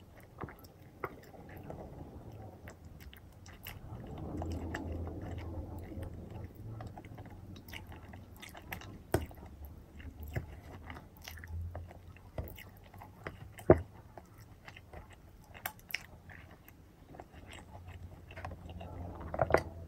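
Close-miked eating sounds of fried chicken eaten by hand: chewing and biting, with many short sharp mouth clicks and smacks, a busier stretch of chewing a few seconds in and one loud click about two-thirds of the way through.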